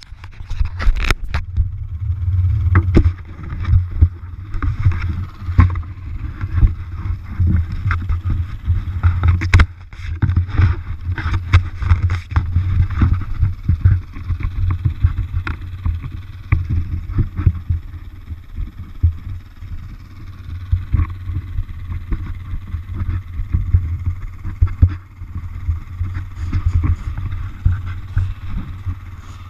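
Wind buffeting the microphone of a helmet-mounted action camera as a low, uneven rumble, with scattered knocks and rubbing from the helmet and camera being handled.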